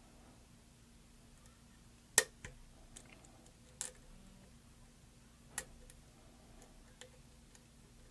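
Lock pick and tension tool clicking inside the challenge lock's keyway during picking: a handful of small, sharp clicks at irregular intervals, the loudest about two seconds in.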